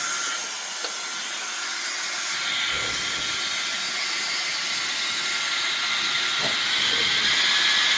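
Dyson-style bladeless ionic hairdryer running, a steady rush of air with a high motor whine, like a jet engine. It gets a little louder in the second half.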